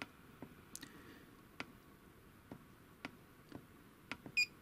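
Light separate clicks, about eight over four seconds, from the control knob of a Quicko T12-952 soldering station being worked through its calibration menu, then one short high beep from the station's buzzer near the end.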